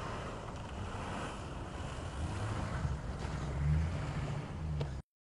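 Hummer's engine running under load as it ploughs through deep snow, swelling in surges in the second half, with wind on the microphone. The sound cuts off suddenly near the end.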